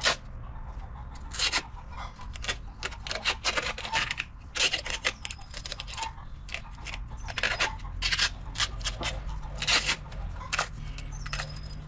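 Irregular scraping and clicking as hands work a white plastic pipe elbow into place on a septic tank's inlet, over a steady low hum.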